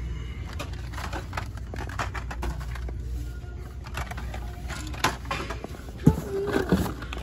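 Irregular clicks and rattles of carded Hot Wheels die-cast cars, plastic blister packs on cardboard, being handled and shuffled in a cardboard case, with a sharper knock about six seconds in. A steady low hum runs underneath.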